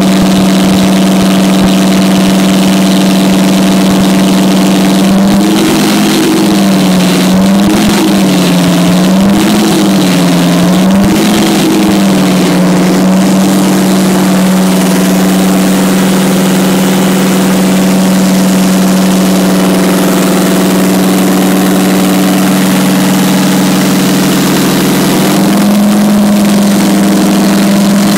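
Detroit Diesel 12V-149 two-stroke V12 diesel engine running at a steady speed. About five seconds in its speed swings up and down four times in quick succession, then it settles and picks up slightly near the end.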